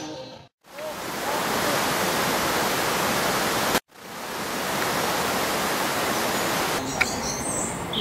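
Steady rush of river water running over rapids, broken twice by short gaps of silence. Birds start chirping near the end.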